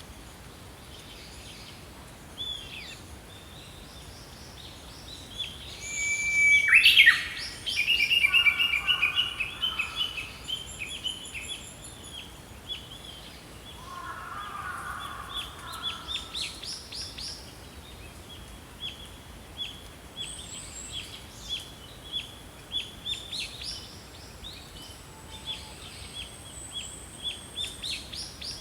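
Small songbirds chirping and singing, with several calls overlapping over a faint steady background. The loudest burst of song comes about seven seconds in, followed by a quick run of repeated notes, and scattered chirps continue after it.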